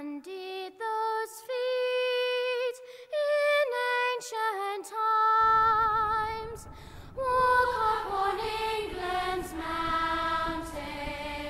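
Music: a woman singing a slow solo melody in held notes with vibrato. From about five seconds in, a low steady noise sits beneath the voice.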